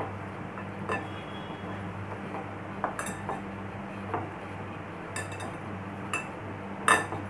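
Raw potato strips being tossed by hand in a glass mixing bowl: scattered clinks and taps against the glass, about eight or nine, the loudest near the end, over a steady low hum.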